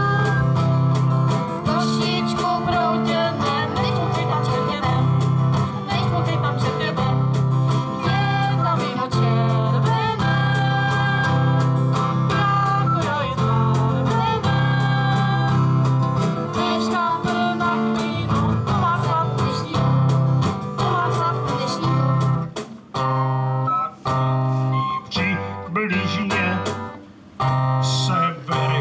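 Acoustic guitars strummed to accompany voices singing a song through a PA. About 22 seconds in, the song breaks into separate short chords with brief pauses between them.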